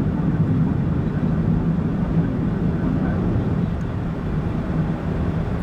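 Steady engine hum and road noise of a car cruising at an even speed, heard from inside the car.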